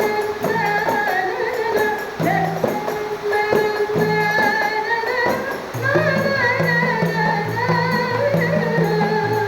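Rebana ensemble playing: hand-struck frame drums beating a steady rhythm under a sung melody, with deep low notes held beneath.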